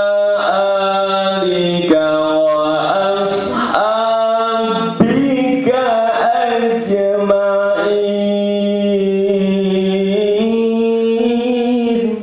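A man singing solo and unaccompanied into a microphone, in long held notes with ornamented bends between pitches. The singing stops just before the end.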